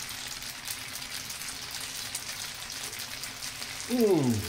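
Spaghetti in olive oil sizzling in a frying pan over very low heat: a soft, steady hiss with faint crackles. Near the end a man gives a short 'mmm' that falls in pitch as he tastes the pasta.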